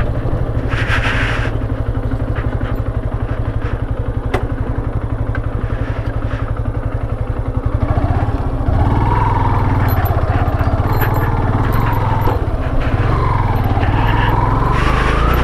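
Motorcycle engine running while riding, a steady low pulse throughout. In the second half its pitch rises and falls several times with the throttle.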